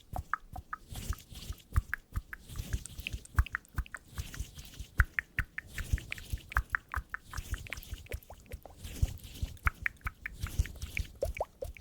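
Close-miked ASMR sounds: a quick, irregular run of small clicks and soft taps with low thuds underneath.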